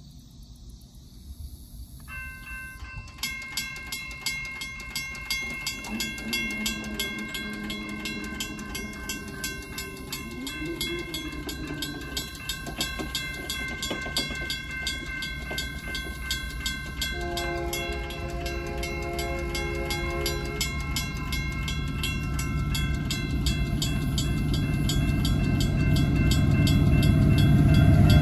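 Railroad crossing signals start ringing about two seconds in: an electronic crossing bell sounds a steady ringing tone while a mechanical crossing bell strikes rapidly and evenly alongside it. Midway a diesel locomotive horn sounds one long blast of about three seconds, and the low rumble of the approaching train grows steadily louder toward the end.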